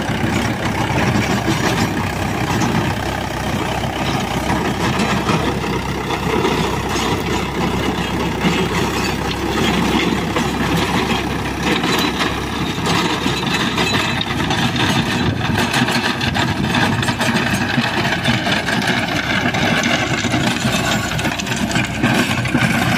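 Mahindra 475 DI tractor's four-cylinder diesel engine running steadily under load while it drives a Shaktiman rotavator tilling dry soil.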